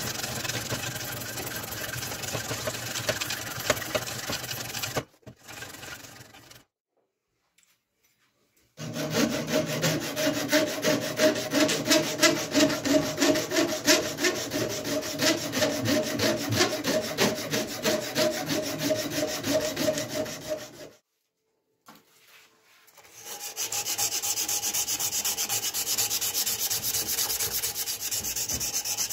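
A hand file rasping back and forth over a wooden knife handle in repeated strokes, stopping twice for a couple of seconds. Near the end the strokes become a steadier, brighter scraping.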